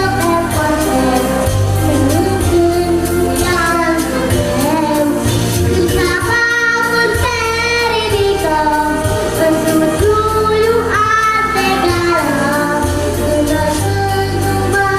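A girl singing a melody over a pop backing track with a steady bass and beat. Her voice wavers in pitch on held notes.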